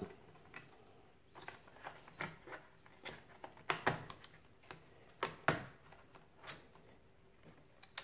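Scattered light clicks and taps of a 2.5-inch SSD in its metal caddy being slid and pressed down into a laptop's plastic drive bay, with the louder knocks between about two and five and a half seconds in.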